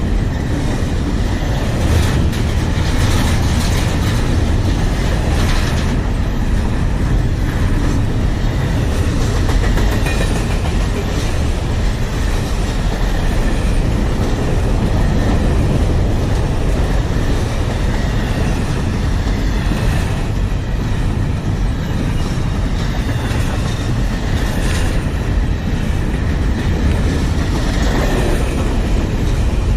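Freight train cars rolling past close by: a steady, loud rumble with wheels clicking over the rail joints.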